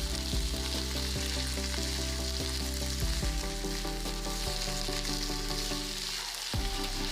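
Food sizzling as it fries in oil in a pan and is stirred now and then, under steady background music.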